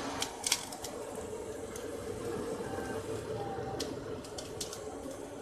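Steady rushing of a forge fire driven by an air blower, heating a length of rebar, with a few light, sharp clicks scattered through.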